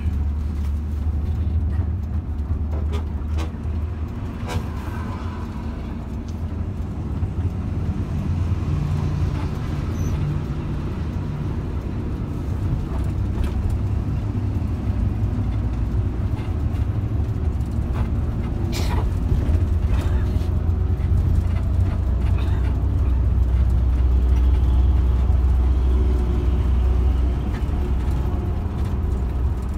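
Cabin drone of an intercity bus under way at highway speed: a steady deep engine and road rumble that swells for several seconds in the later part, with an occasional sharp click or rattle from inside the bus.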